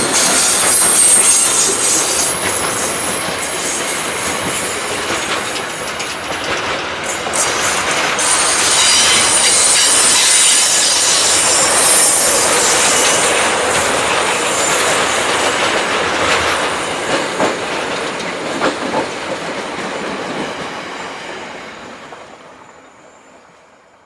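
A train passing close by, its wheels rumbling over the rails with a high-pitched wheel squeal. It dies away over the last few seconds.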